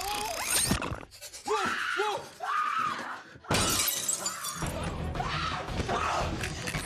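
Action film sound mix: high pitched screeches and screams, then a sudden loud crash with shattering glass about halfway in, followed by dense crashing commotion under the score.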